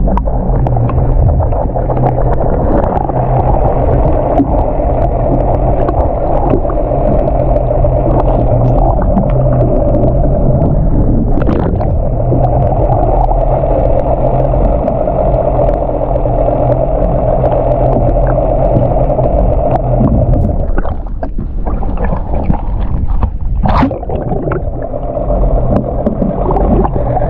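A boat engine running steadily, heard muffled through the water by a submerged camera, with water gurgling around the camera.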